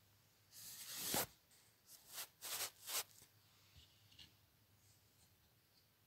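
Pencil shading on drawing paper: one longer scratching stroke that grows louder, then four short quick strokes about two to three seconds in.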